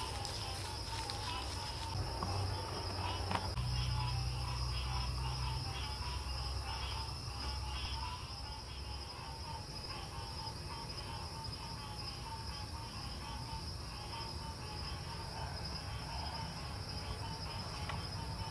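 Steady night-time chorus of many small chirping callers: a constant high whine over rapidly pulsing trills. A low rumble underneath fades out about nine seconds in.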